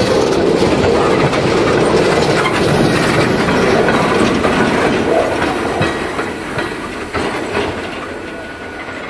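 Empty coal hopper cars rolling by, their steel wheels clicking over the rail joints with a steady rumble. The sound fades as the last car passes and the train moves away near the end.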